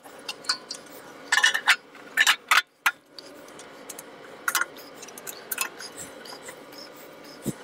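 Sheet-metal clinks and clanks as a bandsaw's upper wheel cover is fitted into place and its retaining knob turned, a dozen or so sharp knocks spread irregularly, over a steady low hum.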